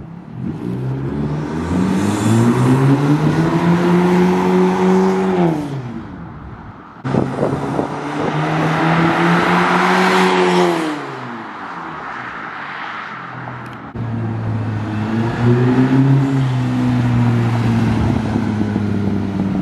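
Honda Civic hatchback's four-cylinder engine through a resonator-and-muffler-delete exhaust, accelerating past in three flybys: each time the engine note climbs as the car pulls, then drops away as the driver lifts off. It has a deep tone.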